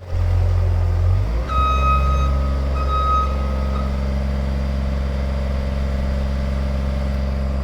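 Diesel engine of a compact track loader (ASV RT-65 skid steer) running steadily, its tone shifting about a second and a half in. An alarm beeps about three times just after the change, like a backup alarm.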